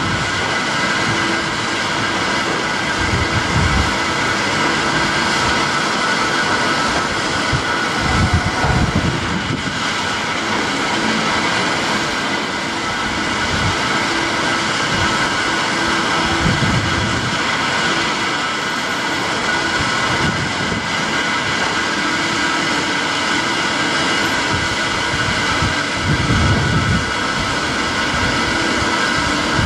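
Electric multiple unit creeping through a carriage washing plant: a steady hiss of spraying water and turning brushes over the train's steady hum, with a few short low rumbles.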